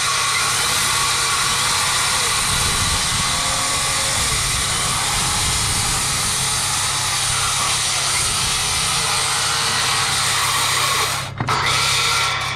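Skil circular saw running under load and cutting through a thick timber rafter tail, a steady whine for about eleven seconds. It breaks off briefly near the end, then runs again.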